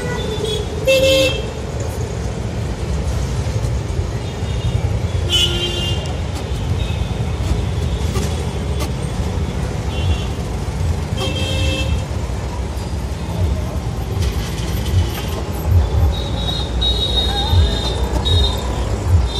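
Steady road traffic rumble with vehicle horns honking about four times, the last honk longer and near the end.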